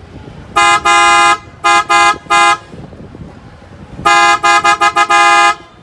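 Newly installed pair of PIAA Superior Bass car horns being test-honked: one long blast, then three short toots, then a quick run of short toots ending in a longer blast. The two horns sound together as a loud two-pitch chord.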